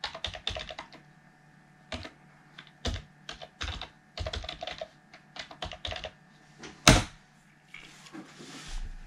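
Computer keyboard keys typed in short bursts as a password is entered and then entered again, with one louder single click about seven seconds in.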